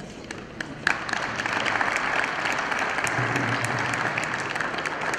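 Crowd applause, many people clapping. It breaks out suddenly about a second in and continues steadily.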